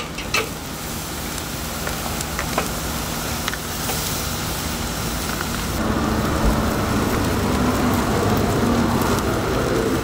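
Porterhouse steak sizzling on a small grill grate over a chimney of hot lump charcoal, with fat crackling as it drips into the coals and flares up. A few light clicks as the steak is turned over at the start, and the sizzle grows louder about six seconds in.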